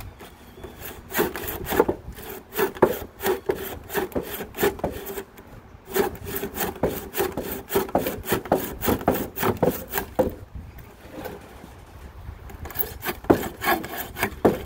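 Crosscut handsaw cutting across a wet 2x4, in fast, even back-and-forth strokes. The strokes ease off briefly about five seconds in and go quieter for a couple of seconds past the ten-second mark before picking up again.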